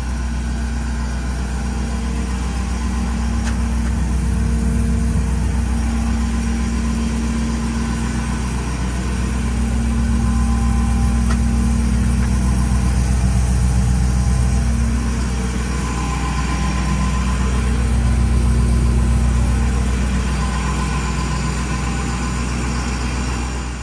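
Ford F-550's 6.7-litre Power Stroke V8 diesel idling steadily, a constant low hum.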